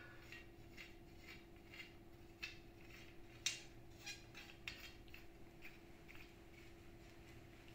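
Faint, scattered clicks and light metallic taps of an airless spray gun extension being fitted by hand, over a faint steady hum.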